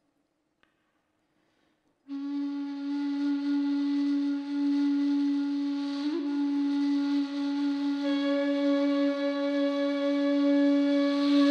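Near silence for about two seconds, then a flute-like woodwind instrument holds one long, steady low note as background music, with a brief wobble about midway.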